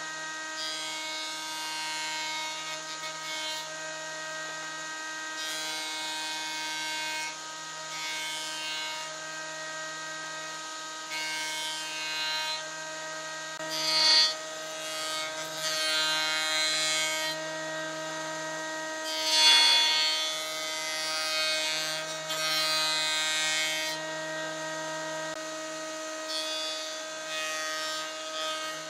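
A jointer-planer runs with a steady whine while blocks of pine are fed across its spinning cutterhead. Each pass adds a rasping cutting noise, loudest about halfway through and again about two-thirds of the way in.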